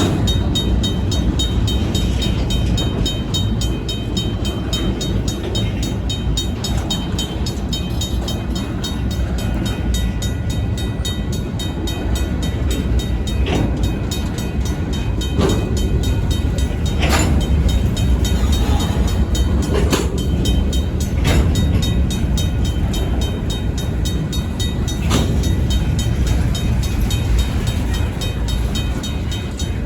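Union Pacific diesel locomotives rumbling slowly through a grade crossing, with a few sharp clunks of wheels over the crossing rails in the middle stretch. The crossing's RACO mechanical bell rings steadily over the engine noise.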